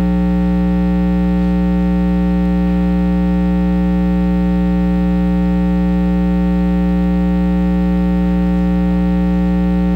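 Loud, steady electrical mains hum in the sound system, a buzz made of many fixed overtones with the strongest just below 200 Hz, unchanging throughout.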